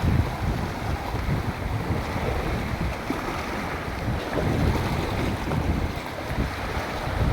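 Sea waves washing, with wind buffeting the microphone in uneven low rumbling gusts.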